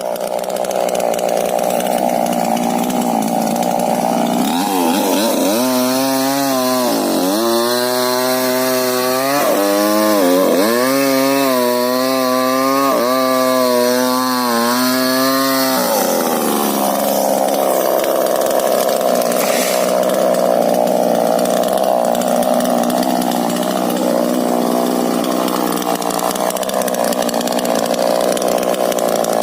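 Two-stroke chainsaw running at high revs as it cuts into a rubber tree, its engine pitch sagging and recovering several times in the middle before settling into a steady run.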